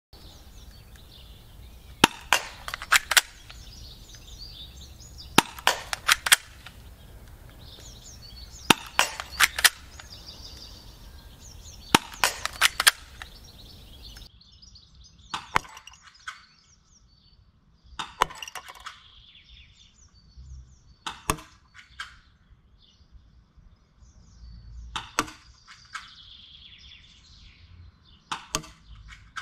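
Spring-powered Walther P99 airsoft pistol being cocked and fired. First come four quick clusters of sharp clicks and snaps, about three seconds apart. Then, after a cut, single sharp shots every three or four seconds.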